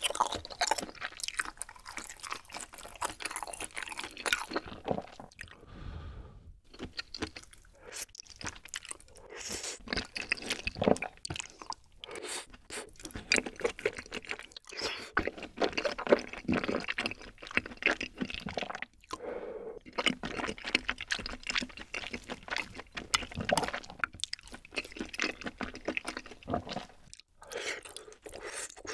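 Close-miked eating sounds: wet, sticky chewing, smacking and slurping of wide glass noodles and rice cakes in a creamy rosé tteokbokki sauce. The bites come in irregular runs with a few short pauses.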